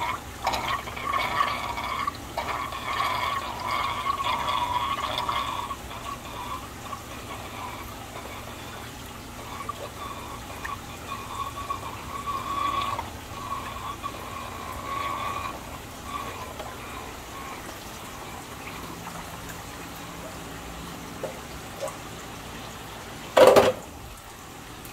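Aquarium water pouring and trickling as fry are moved between tanks, busiest in the first half and then thinning to a faint trickle. One brief loud bang near the end.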